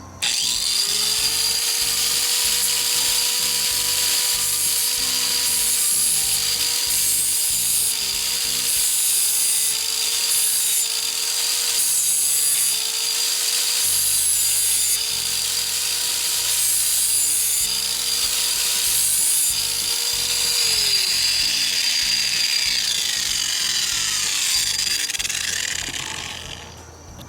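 Electric grinding tool running as it sharpens the cutting edge of a steel lawn mower blade: a steady motor whine under a rasping hiss of metal being ground. About twenty seconds in the motor is switched off and winds down, falling in pitch, and the grinding hiss fades out over the last few seconds.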